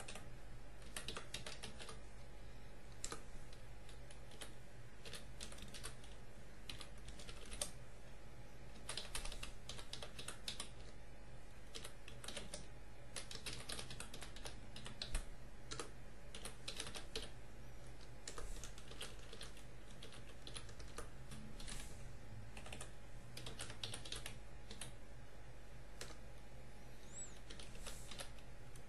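Computer keyboard typing: irregular runs of keystrokes with short pauses, over a steady low hum.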